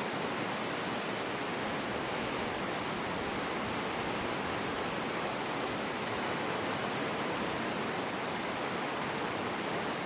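River rapids in a narrow rock gorge: white water pouring over boulders, a steady, unbroken rush.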